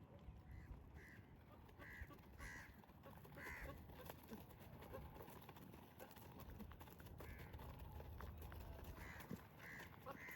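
Faint, short animal calls repeated at irregular intervals, about eight in all, over a low rumble.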